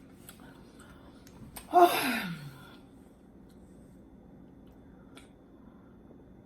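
A sharp click, then a woman's short wordless vocal sound that falls in pitch, about two seconds in. A faint click follows near the end.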